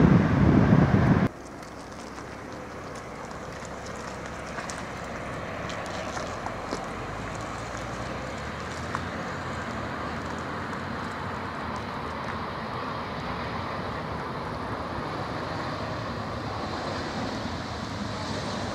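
Regional jet's turbofan engines rumbling loudly with wind on the microphone as a Bombardier CRJ-900 touches down. About a second in, the sound cuts sharply to a quieter, steady jet engine noise from an Embraer E-jet rolling along the runway. This noise grows slowly louder, with a faint high whine building near the end.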